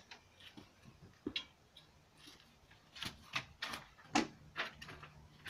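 A sheet of paper being pulled off a door: a string of short crackles and taps from the paper and its tape, bunched about three to four and a half seconds in.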